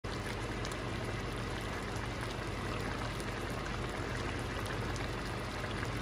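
Chicken stew simmering in an enamelled cast-iron pot: a steady bubbling hiss with faint pops and a low hum underneath.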